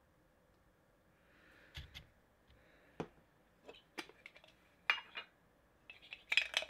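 Metal Funko Soda cans clinking and tapping as they are handled on a tabletop: a handful of separate light knocks, with a quicker run of clicks near the end.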